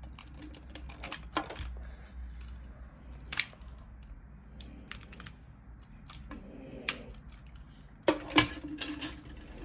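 Hard plastic parts of a Tobot Admiral transforming robot toy clicking and knocking as they are handled and pegged together, with scattered sharp snaps, one loud snap partway through and a quick run of louder clicks near the end.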